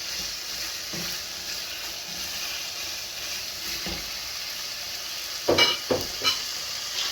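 Minced beef and vegetables sizzling in a frying pan while being stirred, with a steady hiss. A little past the middle come a few sharp knocks, the loudest sounds, of the utensil against the pan.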